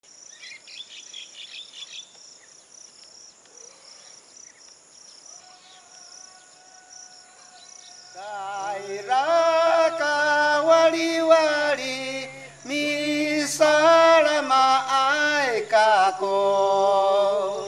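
Insects chirping steadily. From about five seconds in a soft held note enters, and from about eight seconds a much louder slow melody of long held notes, likely sung, plays over a low steady drone.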